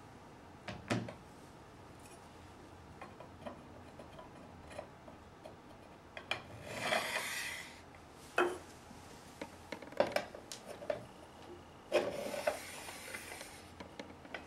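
Busway housing sections and joint hardware being handled on a tabletop: scattered light clicks and knocks, with a longer scraping rub about halfway through and another near the end as parts slide against each other.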